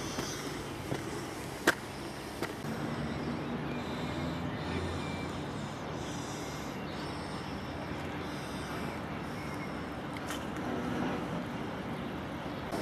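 Steady outdoor background noise with a faint low hum, and a few sharp clicks in the first couple of seconds and once more near the end.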